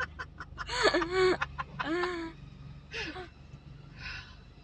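High-pitched voices calling out in short, wordless exclamations, loudest about one second in and repeated three more times, fading towards the end, over a steady low hum.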